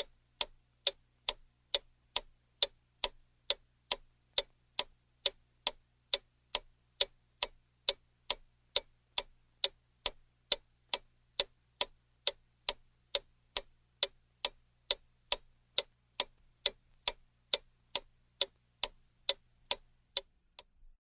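Clock ticking steadily, sharp even ticks at about two a second, over a faint low hum; the ticking stops just before the end.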